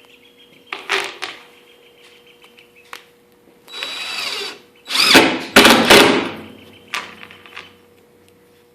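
Power drill driving screws into wood, in several short runs with pauses between, the longest and loudest about five to six seconds in. The screws join glued plywood deck panels to their cleats.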